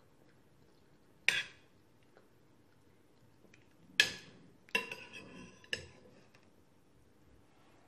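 An eating utensil clinking against a dish four times, sharp and separate. One clink, a little past the middle, rings briefly.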